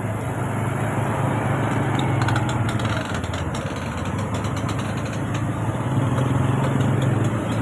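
Small motorcycle engine running at low revs close by, a steady low hum that eases off about three seconds in and picks up again near six seconds.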